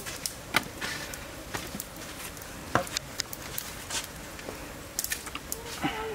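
Light, irregular wooden clicks and knocks, about half a dozen, as stick skewers are set onto a frame of wooden sticks. The sharpest knocks come about half a second in and near the three-second mark.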